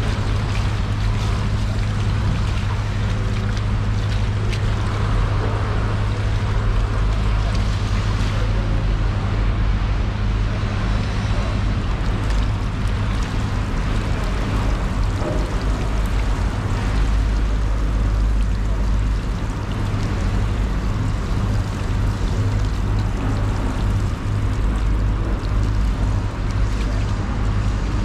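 Water from a hose running and splashing over a marlin loin and the wet floor, over a steady low hum.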